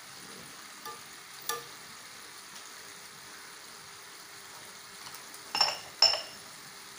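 Sardines in chilli-onion sauce bubbling and sizzling steadily in a nonstick wok, with two brief sharp sounds about five and a half and six seconds in.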